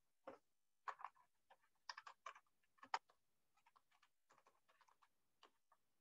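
Faint, irregular clicks and ticks over near silence, several to a second, the loudest about one and three seconds in.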